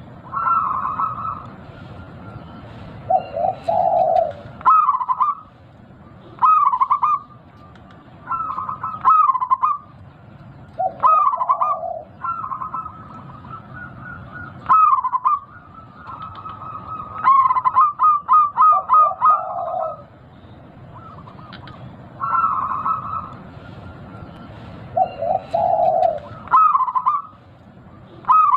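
Zebra dove (perkutut) cooing: about a dozen phrases, each a run of quick rolling coo notes, repeated every two to three seconds over a steady low background noise.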